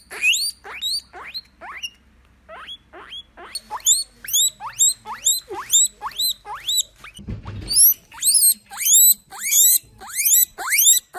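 Guinea pig wheeking: a long run of sharp, rising squeals, about two to three a second, growing louder in the second half.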